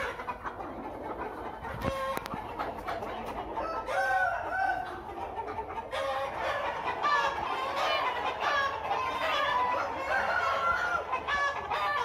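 Aseel chickens in a pen, several clucking and calling over one another. The calls start about four seconds in and grow thick from about six seconds on.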